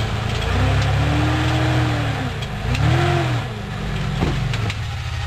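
4x4 truck engine rock crawling, revving up and back down twice as the truck works over boulders, with a sharp knock about four seconds in.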